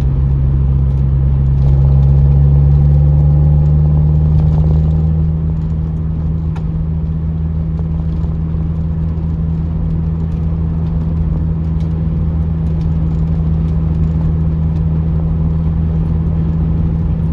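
An MG TF's four-cylinder engine and road noise heard from inside the cabin while driving: a steady low hum that swells slightly about two seconds in and eases back after about five seconds, with a few faint clicks over it.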